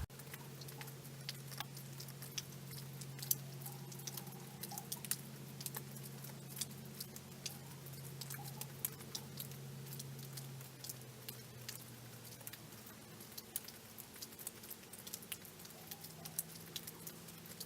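Falling snow ticking lightly and irregularly against nearby surfaces in many small, scattered clicks. Under it is a faint, steady low hum that fades out about twelve seconds in and returns at a slightly higher pitch near the end.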